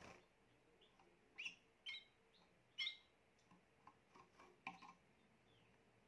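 Spanish Timbrado canary giving three short chirps about one and a half, two and three seconds in, then a few fainter ticks, in a quiet room; not its full song.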